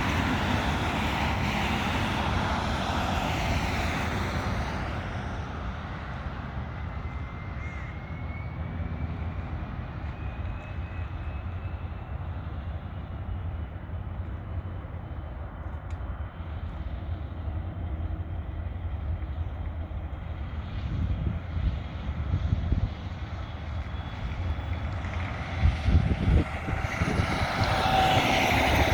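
Jet engines of a Gulfstream III business jet, Rolls-Royce Spey turbofans: loud at first, fading over the first few seconds, then building again near the end. A faint rising whine runs through the quieter middle, and wind buffets the microphone in places.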